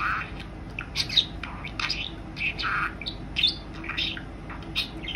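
Female budgerigar chattering in quick chirps and scratchy warbles, with mimicked words captioned as 'chon-chon' and 'Kyuu-chan' worked into the chatter.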